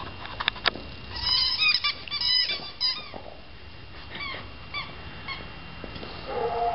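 A squeaky toy squeezed over and over, giving runs of short, high squeaks in quick succession, then a few sparser squeaks. A lower, longer pitched sound starts near the end.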